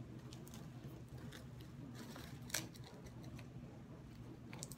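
Scissors snipping tags off flower stems: a few quiet clicks, the sharpest about two and a half seconds in.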